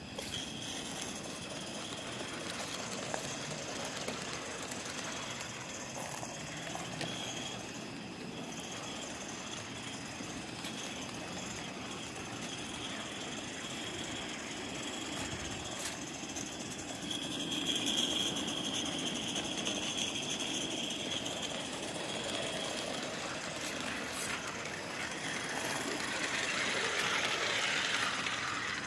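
Live-steam Forney model locomotive running along its track with its coach, a steady hiss of steam over rolling noise. It grows louder about 17 seconds in and again near the end.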